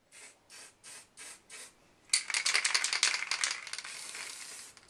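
Aerosol can of grey primer being shaken, its mixing ball rattling in five quick strokes, then sprayed in a long, loud hiss from about two seconds in.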